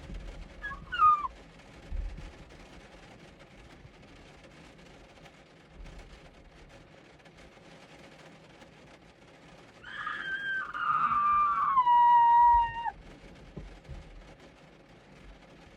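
A small hand-operated horn honking: a short note about a second in that drops in pitch, then a longer honk of about three seconds starting around ten seconds in, its pitch sliding downward before it cuts off.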